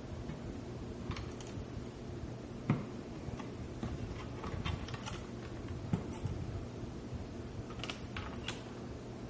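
Scattered light clicks and ticks from a dual-GPU graphics card being handled and pried at with hands and a screwdriver as its stuck cooler is forced, with two louder knocks a few seconds apart.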